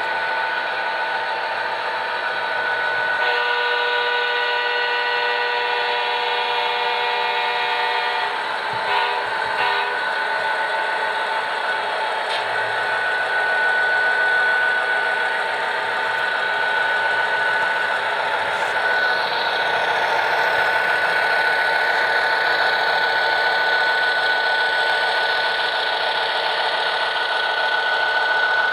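Model locomotive sound decoder playing Alco RS-2 diesel sounds through the model's small speaker: the diesel engine runs steadily, with a horn blast held from about three to eight seconds in and a few short horn toots just after.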